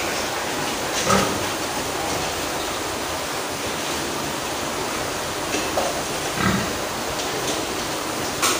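A few short pig calls, about a second in and again around six and a half seconds, over the steady rush of an electric fan.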